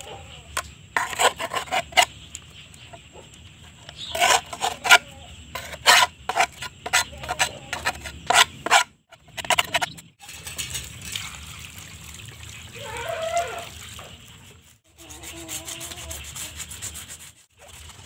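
Hand-held wooden block rubbed and scraped in quick irregular strokes, dense in the first half. Later come a few short wavering pitched sounds.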